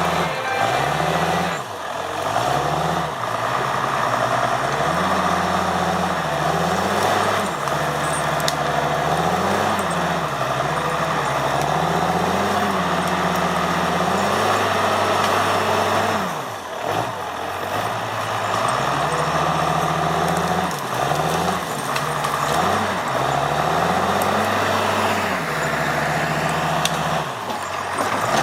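Heavy machine's diesel engine working, its pitch repeatedly climbing and dropping as it revs up and down.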